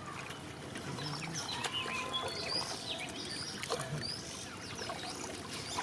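Small birds chirping repeatedly over a steady outdoor background, with faint sloshing of water as a fishing net is worked by hand through a shallow weedy pond.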